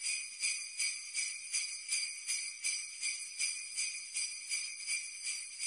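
Jingle bells shaken in a steady rhythm, about three shakes a second, with no other instruments.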